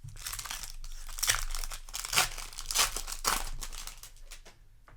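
Foil wrapper of a Magic: The Gathering Foundations play booster crinkling as it is handled, in a run of crackling bursts that fade near the end.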